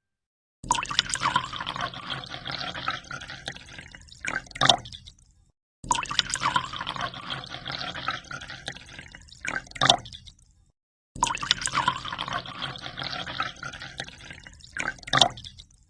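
Water splashing and dripping. The same five-second stretch is heard three times over, each time ending with two sharper splashes.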